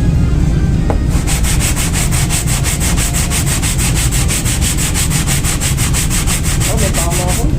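Brake pad rubbed back and forth on sandpaper over a flat surface, a fast, even rasping rhythm of about seven strokes a second that starts about a second in and stops just before the end. The pad is being sanded level to take off its uneven, glazed surface, a fix for brake squeal.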